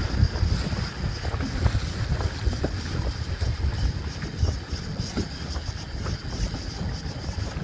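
Wind buffeting the microphone on a small fishing boat under way, with water slapping against the hull and a steady high whine in the background.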